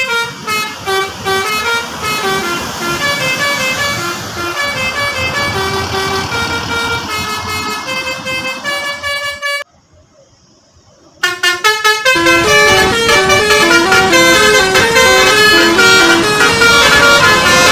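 Bus 'telolet' Basuri musical air horn playing a fast melody of short, stepped notes. It breaks off about halfway through, then starts again louder.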